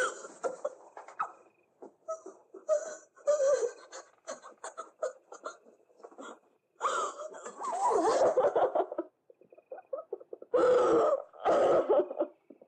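Distressed human voices without words: gasping, sobbing breaths, then two long, loud cries in the second half.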